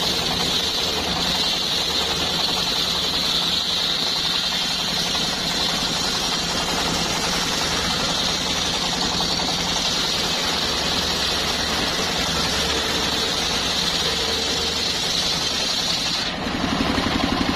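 Engine-driven wood saw running steadily, with a constant high whine over the engine's running. Near the end the sound switches abruptly to a lower, rougher engine sound.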